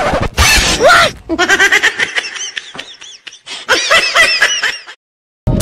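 A person laughing, a run of quick high-pitched 'ha-ha' sounds, which cuts off suddenly near the end.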